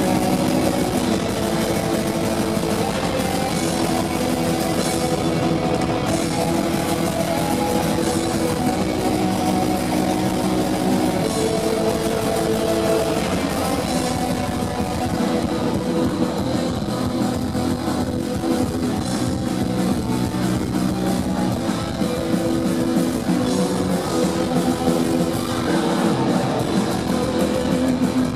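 Heavy metal band playing live: distorted electric guitars holding sustained notes over a drum kit, loud and dense, heard through the PA from the crowd.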